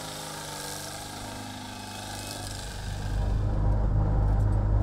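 Pinzgauer 712 six-wheel ambulance's air-cooled four-cylinder petrol engine running steadily as it drives. About three seconds in, the sound changes to a louder low rumble from inside the rear compartment as the vehicle drives over rough forest ground.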